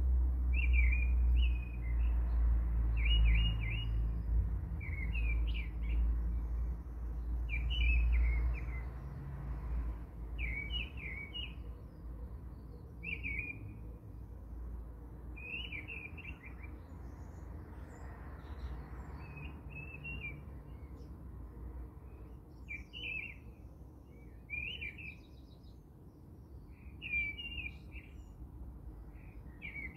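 A bird chirping in short repeated phrases, about one every two seconds, over a low rumble that is strongest in the first ten seconds and then fades.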